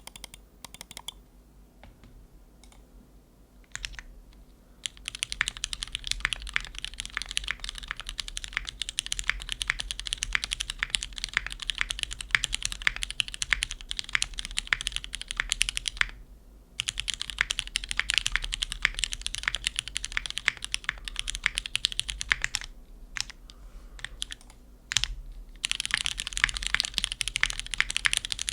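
Typing on a Mode Envoy mechanical keyboard with lubed Cherry MX2A Black linear switches on an aluminum plate and GMK Kaiju keycaps: clacky keystrokes. A few single key presses open it, then fast continuous typing with two short pauses, the second filled with scattered single presses.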